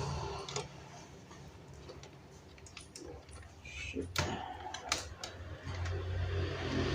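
Scattered light clicks and knocks of a laptop and tools being handled on a work surface, with two sharper clicks about four and five seconds in.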